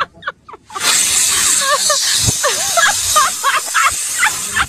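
A few short rubbery squeaks, then from about a second in a loud, steady hiss of rushing air with wavering squeaks over it as a red balloon is inflated.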